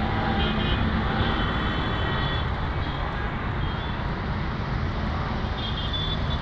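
IndiGo Airbus A320-family jet climbing away after takeoff: a steady low jet-engine rumble that slowly fades as the plane recedes.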